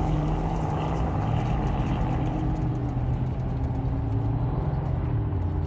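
A motor vehicle's engine running at a steady pitch with little change in speed.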